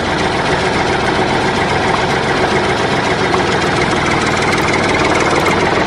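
An engine idling steadily, a dense even running sound with no change in pace.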